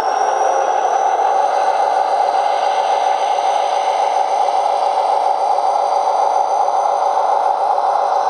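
Small airbrush compressor running steadily with an even, humming motor drone.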